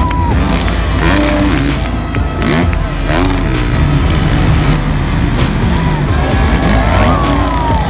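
Motocross bikes' engines revving on the track, their pitch repeatedly rising and falling as the riders open and close the throttle.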